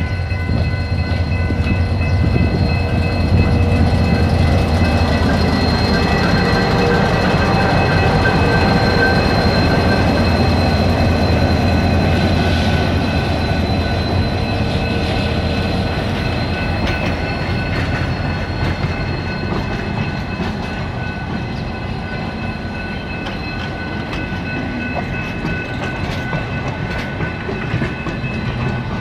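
Diesel locomotive hauling a passenger train past at close range: a heavy engine rumble that is strongest in the first half and fades, with the coaches' wheels clacking and rattling over the rails. Several steady high tones run over it.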